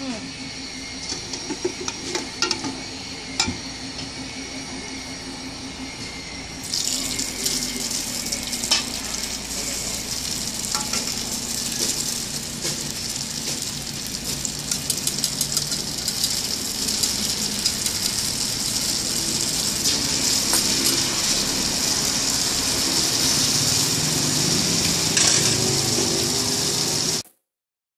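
Hot oil sizzling and crackling in a large flat pan as mussel pancake batter fries, with a few sharp clicks over it; the sizzle starts about seven seconds in and grows louder.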